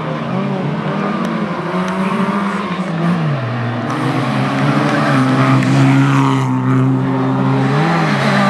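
Race car engine working hard through a slalom course. Its pitch drops and climbs again several times as the driver lifts off and gets back on the throttle.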